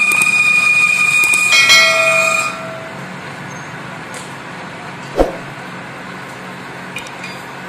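Metal lathe cutting a large iron workpiece: a loud, steady high-pitched ringing squeal from the cut, which stops about two and a half seconds in, leaving the machine running with a low pulsing hum. A single sharp knock about five seconds in and a few light metallic clicks near the end.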